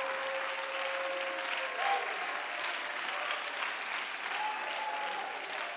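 Church congregation clapping and applauding steadily.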